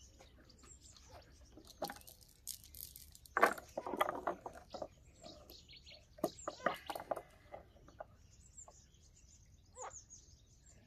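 Small birds chirping, over the rustle and clicking of a cast net's mesh and weights being handled. The handling noise is loudest about three to four seconds in and again around seven seconds.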